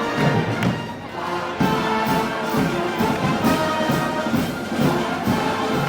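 Brass and wind band playing festival music, with a steady beat of percussion strokes about twice a second. The band comes in more strongly about one and a half seconds in.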